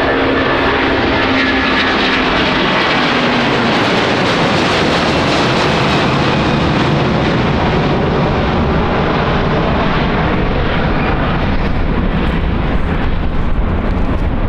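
Airbus Beluga XL's Rolls-Royce Trent 700 turbofan engines at high power as the jet passes and climbs away: a loud, steady jet noise with a falling whine in the first few seconds, its high hiss fading away over the second half.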